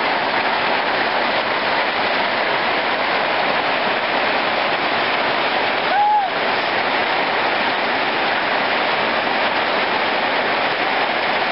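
Rain falling steadily on the yard, a dense, even hiss. One short rising-and-falling call about six seconds in.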